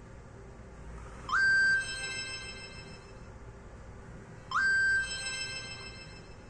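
Preloaded tone on a Nokia 5230 mobile phone: a quick upward slide into a held electronic note, loud for about half a second and then fading, sounding twice about three seconds apart.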